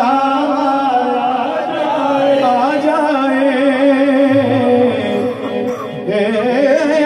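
Male reciter singing a long, wavering melismatic phrase of an Urdu hamd into a microphone over a loudspeaker system, over a steady low drone. The voice dips briefly about six seconds in before rising again.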